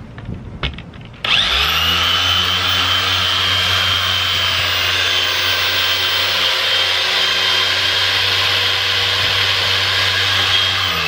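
Corded electric car polisher with a foam pad switched on about a second in, its motor running steadily with a high whine while it buffs the door's single-stage paint, and starting to wind down at the very end.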